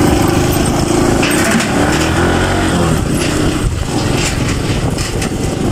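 Small motorbike engine running at low speed while the bike rolls onto the steel-grating deck of a suspension footbridge. A few short clatters sound over the engine.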